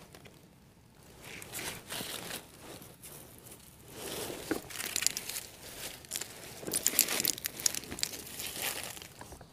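Dry forest leaf litter rustling and crackling as it is walked through or pushed aside, in irregular bursts that start about a second in and grow louder and denser around the middle and again later.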